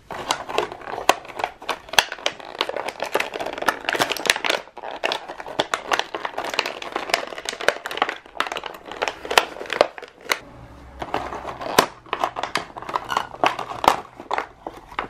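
Clear plastic toy packaging crinkling and crackling as it is handled and pulled apart, a dense run of sharp irregular crackles with brief lulls about five and ten seconds in.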